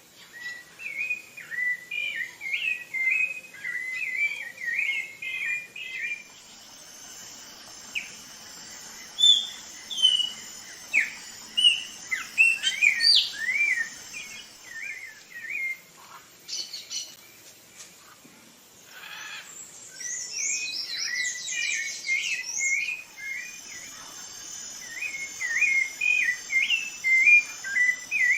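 Rufous-bellied thrush singing: a run of short, fluting, warbled phrases that dip and rise in pitch, separated by brief pauses.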